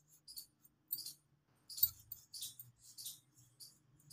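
Hands pressing and smoothing paratha dough on a floured board, with light irregular jingling clicks, a few a second, over a faint low hum.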